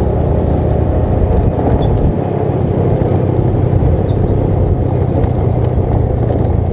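Automatic scooter riding along, its engine running steadily under heavy wind rush on the camera's microphone. About four seconds in, a quick series of short high chirps, three or four a second, runs for about two seconds.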